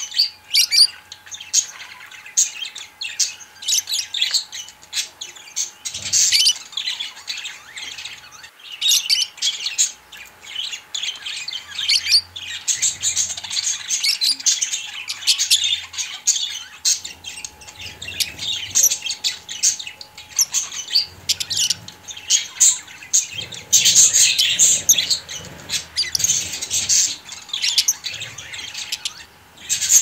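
Budgerigar chatter: a continuous run of quick, high chirps and warbles with no pause.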